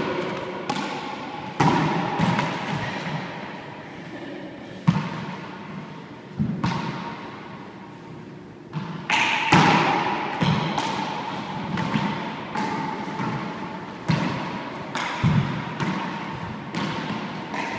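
Handball rally in an enclosed four-wall court: a hard rubber ball slapped by hand and smacking off the walls and floor, with sharp smacks about once a second and a lull near the middle. Each smack rings out in the echoing court.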